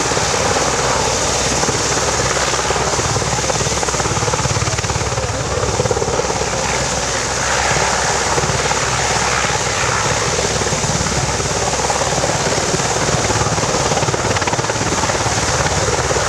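EH101 three-engined helicopter flying a display pass: loud, steady turbine and rotor noise with a fast, even rotor chop underneath.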